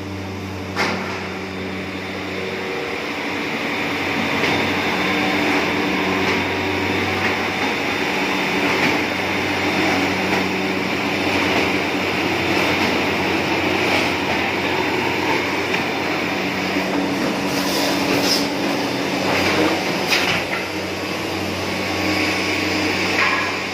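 Woodworking machinery in a finger-jointing plant running with a steady hum and noise, with a few sharp clicks in the second half.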